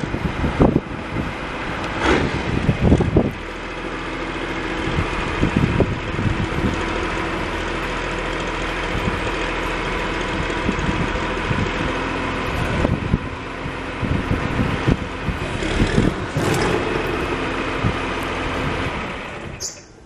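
A John Deere backhoe loader's diesel engine idling steadily, with a few brief knocks over the drone. Near the end the sound drops away suddenly.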